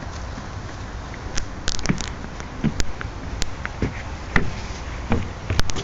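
A string of light, irregular knocks and taps over a low steady rumble.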